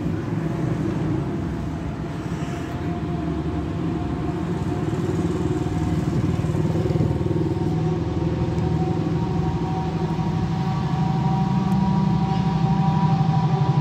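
Class 70 diesel freight locomotive approaching with a tank train. Its engine is a low, steady sound that grows steadily louder, with a higher whine coming in about halfway through and an even throb near the end.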